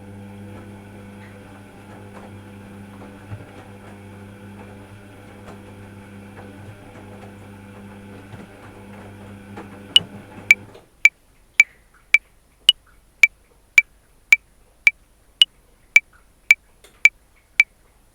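A washing machine running with a steady motor hum, which stops about eleven seconds in. A metronome then clicks at 110 beats per minute in 5/4, a higher accented click on every fifth beat.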